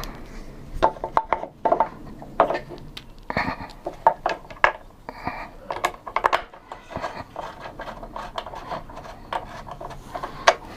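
Metal parts and tools being handled during assembly: irregular clinks, taps and light scrapes, some with a short metallic ring.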